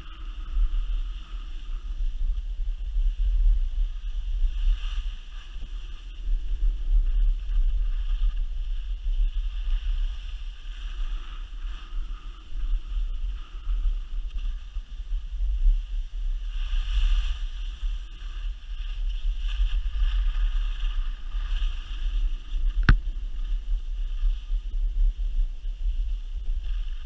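Wind buffeting the microphone of a camera carried by a skier running down a groomed piste, a heavy fluttering rumble with a steady hiss of skis on snow over it. A single sharp click sounds near the end.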